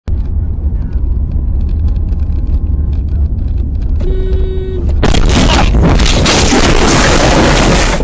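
Car cabin with a steady low road and engine rumble, a car horn honking once for under a second about four seconds in, then about a second later a loud crash lasting some three seconds as the car is hit and its windshield shatters.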